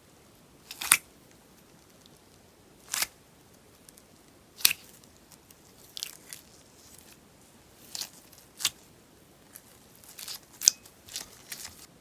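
Scissors snipping through crackly sponge slime, each cut a short, crisp crackling pop. About a dozen separate cuts, a second or two apart at first and coming in quicker clusters near the end.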